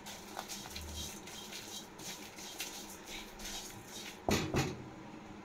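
A spatula stirring dry whole spices and lentils in a kadhai for dry-roasting: light, repeated scraping and rattling of the grains against the pan, with one louder knock about four seconds in.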